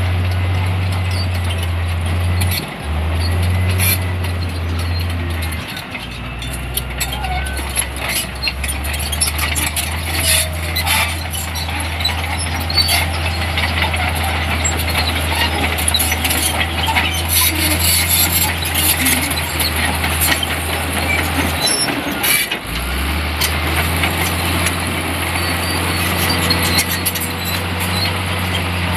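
Heavy diesel earthmoving machine running under working load, its engine note dropping about six seconds in and dipping briefly near the end before climbing back to a higher speed. Scattered knocks, clanks and faint squeals from the working machinery ride over the engine.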